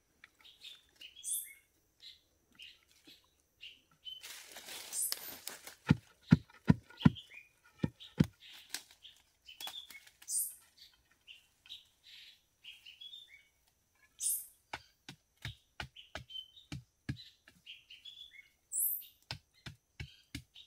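Dull thuds of a wooden pole jabbed down into soft forest soil, about two a second, in two runs. Small birds chirp in short calls over the top.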